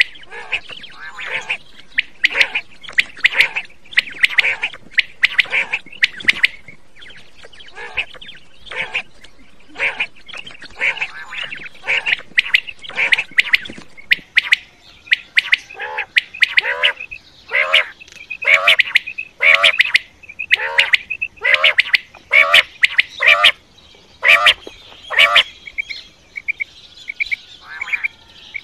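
Quail calling again and again in short, sharp calls, about one or two a second, with no pause in the series.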